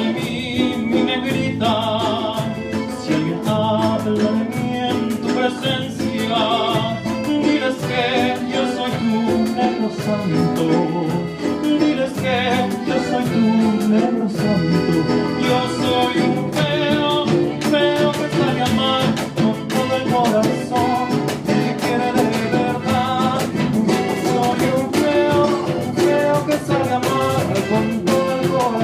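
Live ensemble performing a traditional Oaxacan song, with a singer's voice over the instruments.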